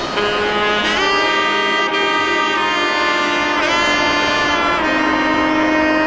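Background music: held melodic notes from a wind or brass-like lead, sliding up near the start and swooping down and up again midway, with no beat prominent.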